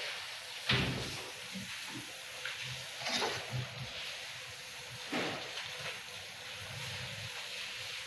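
A metal square and a pencil knock and scrape a few times against a wooden door, the loudest about a second in, over a steady hiss.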